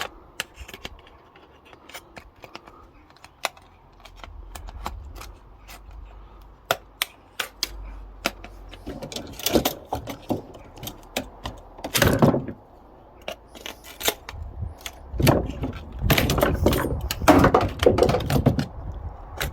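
Metal clinking, scraping and knocking as an aluminium heatsink is worked off a computer circuit board, with scattered sharp clicks and louder bouts of clatter later on.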